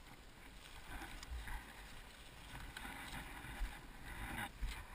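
Low, muffled rumble and wind noise from an enduro motorcycle moving slowly over rough forest ground, picked up on a helmet-mounted camera, with a couple of short knocks near the end.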